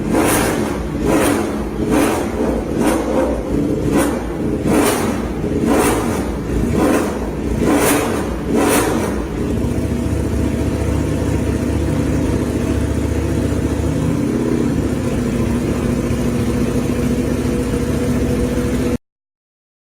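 Ducati Panigale V4's V4 engine through an aftermarket exhaust, revved in quick throttle blips about once a second at standstill. About halfway through it settles into a steady idle, and the sound cuts off abruptly near the end.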